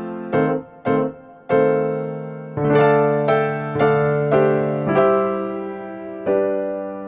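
Background piano music, electric-piano in tone: slow single notes and chords struck about once a second, each ringing and slowly fading.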